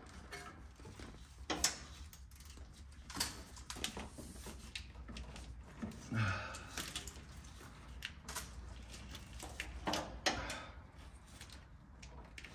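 Scattered clicks and knocks of hand tools as a 15 mm socket on an extension is worked onto an engine mount bolt, over a low steady hum.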